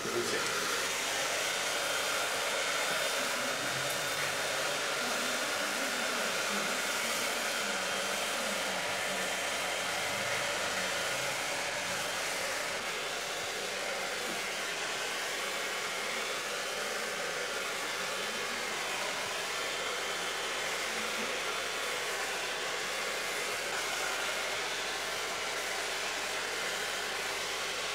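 Handheld electric hair dryer blowing steadily: an even rush of air with a faint motor whine.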